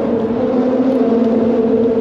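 Steady engine drone, holding an even pitch without rising or falling.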